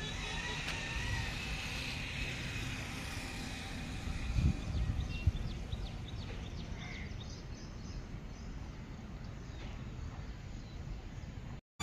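Outdoor roadside ambience: a steady low rumble with faint bird chirps, and two brief thumps about four and five seconds in.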